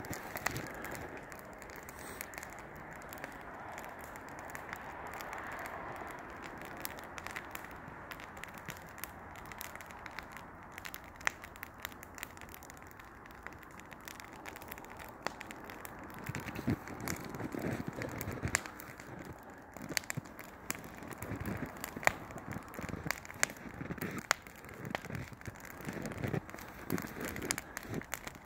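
Wood campfire burning, crackling with frequent sharp pops over a steady hiss of flames. Through the second half, irregular low thumps come in over the fire.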